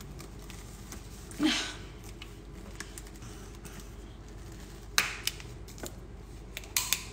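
Light clicks and handling noises from a plastic milk bottle and its screw cap. There is a short breathy sound about a second and a half in, and a few sharp clicks near the end.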